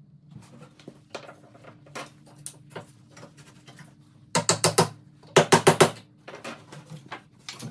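Two quick runs of sharp taps, about five in each, with lighter clicks scattered around them, over a steady low hum.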